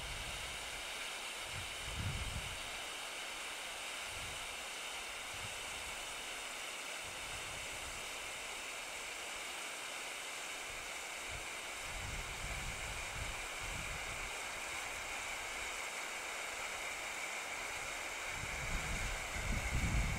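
Expired red pyrotechnic distress hand flare, 30-plus years old, burning with a steady hiss: the old flare still works. Low gusts of wind rumble on the microphone now and then, most near the end.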